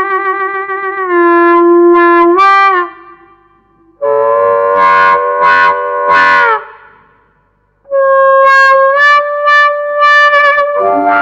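Harmonica amplified through a Dyna-Mic Nighthawk harmonica microphone, played in three phrases with short gaps between them. First comes a held note with vibrato that bends down. Next is a held chord that brightens in three swells as the cupped hands open over the mic's hand-effect sensor. Last is a run of short, pulsing notes.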